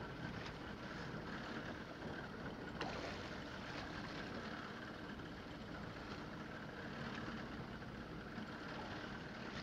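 Steady rush of wind and sea water around a fishing boat offshore.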